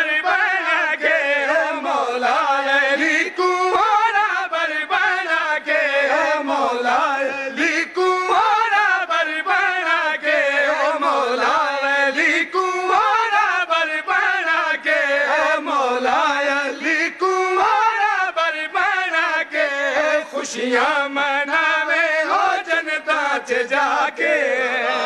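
A man chanting a devotional qasida in praise of Mawla Ali, solo and unaccompanied, in long melodic phrases that rise and fall, amplified through a microphone.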